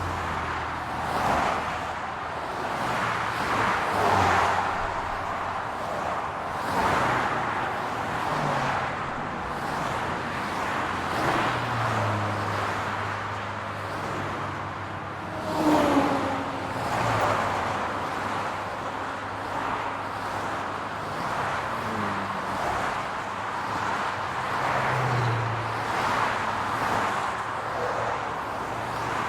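Road traffic: a continuous wash of cars passing, tyre noise and engine hum swelling and fading, with one louder vehicle going by about sixteen seconds in.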